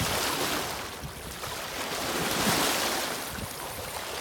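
Water splashing and washing over shoreline rocks as a hooked shad thrashes at the surface in the shallows while being reeled in. The splashing swells about two and a half seconds in.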